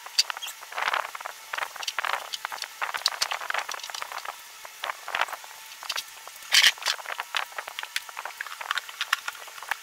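Irregular rustling, scraping and light knocking of foam padding being worked into an aluminium-framed mixer case, with a louder scrape about two thirds of the way in.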